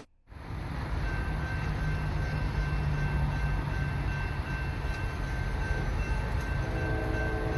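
Steady low rumble of a freight train, heard from trackside. Near the end a distant locomotive horn begins to sound, a steady chord.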